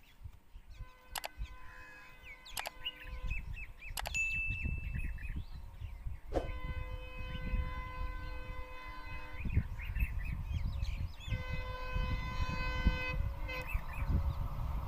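Horn of an approaching twin ALCo diesel locomotive pair, sounded in three long blasts, over a low engine rumble that grows as the train nears. Birds chirp in between.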